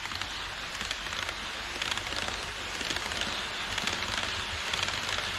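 HO-scale model E5 series shinkansen running on KATO Unitrack: a steady rattling of its wheels rolling on the rails with fine clicking, growing louder as the train approaches.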